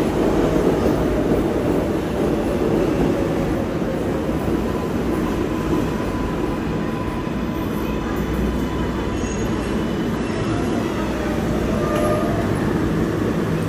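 New York City subway R142/R142A train running on the rails: a steady rumble of wheels and track, with a faint thin squeal over it at times.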